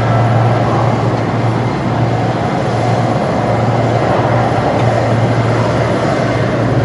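Airport terminal ambience between announcements: a steady low hum over an even rushing noise, with no voice standing out.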